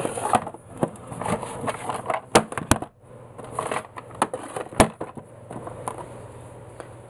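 Stacked clear plastic trays of small glitter jars being handled: shuffling and rubbing of plastic with a few sharp plastic clicks, the loudest near the middle.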